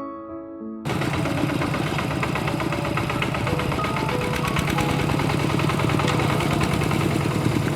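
Soft piano music cuts off about a second in. A steady, loud motor or engine noise with a low hum then runs on, with faint music notes beneath it.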